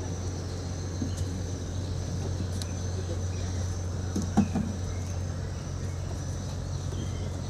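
Hand work on a small boat engine's propeller-shaft coupling, with one short metallic clink about four and a half seconds in, over a steady low hum and a steady high insect-like tone.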